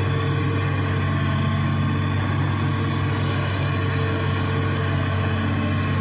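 Hitachi excavator's diesel engine running steadily, a constant low hum with a faint steady whine above it.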